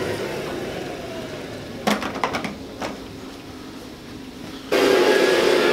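Canister vacuum cleaner winding down after being switched off, its motor whine falling in pitch, then a few sharp plastic clicks as parts are handled, and the motor starting up again abruptly near the end.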